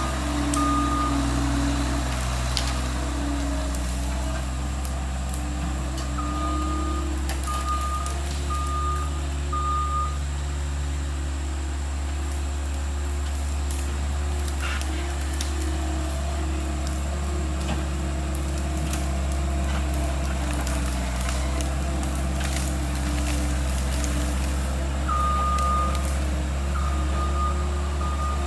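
Skid steer loader's engine running steadily. Its backup alarm beeps in short runs at the start, again about six seconds in, and again near the end as the machine reverses.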